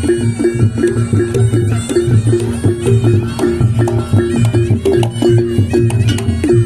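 Reog Ponorogo accompaniment music: drums and gong-chime percussion beat a quick repeating pattern of about three strokes a second under a held reedy drone.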